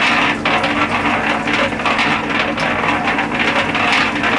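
Small water pump running with a steady hum while water rushes through it.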